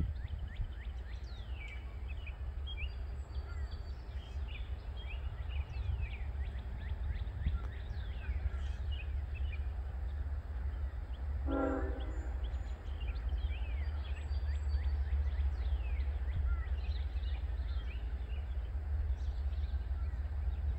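Distant Norfolk Southern freight locomotive horn, one short blast about halfway through, over a low steady rumble and birds chirping.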